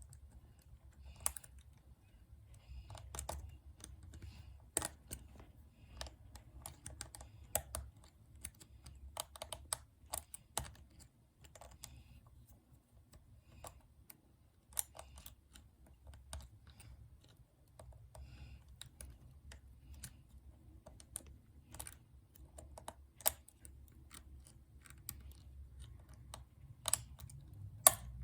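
Lock pick and tension tool working the levers of an Abus 234 60 mm lever padlock: irregular light clicks and ticks, with a faint low rumble underneath. A few sharper clicks come near the end.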